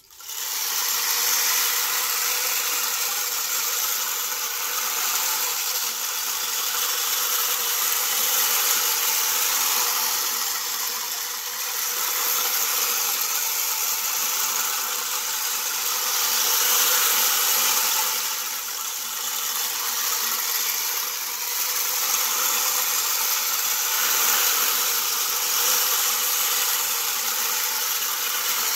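Wooden rain disc being tilted in the hands, its filling running along the spiral track inside to make a dense, steady rain-like patter that swells and eases every few seconds.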